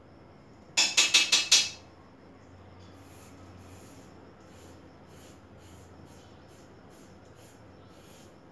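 Five quick, loud, sharp taps about a second in, followed by faint short scraping strokes of a razor shaving a lathered scalp, roughly one or two a second.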